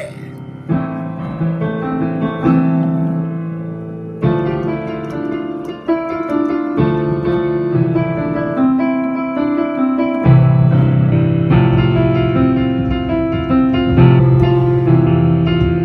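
Piano playing an instrumental passage of held chords, a new chord struck every few seconds.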